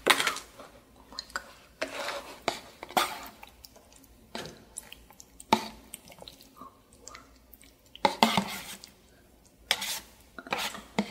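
Chopsticks scraping and tapping against a paper noodle cup as saucy wide glass noodles are pushed out and slide wetly onto a wooden tray. It comes as irregular knocks and scrapes with short pauses between them, beginning with a plastic lid being handled.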